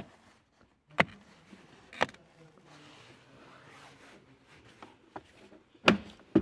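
Sharp clicks and knocks from hands handling the plastic cabin-filter housing and dashboard trim: single knocks about a second apart, then two close together near the end.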